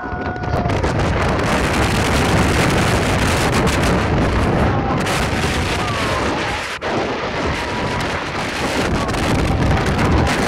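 Loud wind rushing over the microphone of a rider on the Silver Star, a steel hypercoaster, as the train runs at speed, with the train's low rumble underneath.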